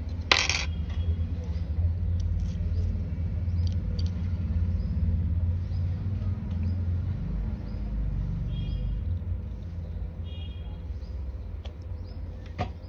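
A steady low rumble, with one sharp click just after the start and two short, faint high tones about two-thirds of the way through.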